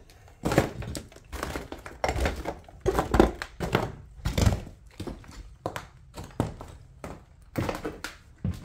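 A string of irregular thuds and knocks with crunching and crinkling of debris, about a dozen over several seconds, in a small, bare room.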